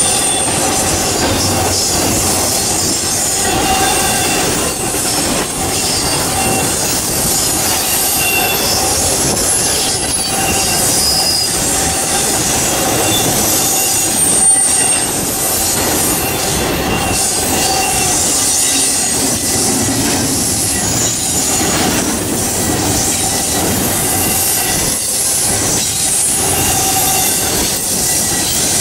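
Intermodal freight cars with stacked containers rolling past on steel rails: a steady loud rumble and clatter of wheels, with intermittent high-pitched wheel squeal and a single sharp clank about halfway through.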